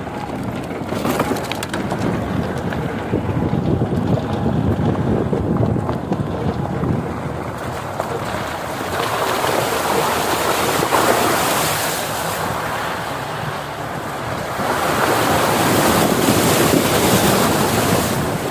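Wind rushing over the microphone, a steady noisy rush that swells louder around the middle and again near the end.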